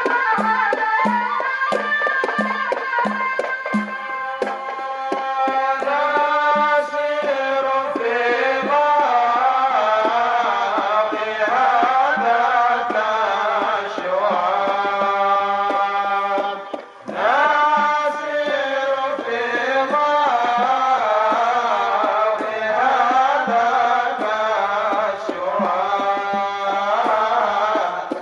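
A group of men singing a samai devotional chant in unison, with long held notes. A drum beats about twice a second under the first few seconds, and the singing breaks off briefly about 17 seconds in before resuming.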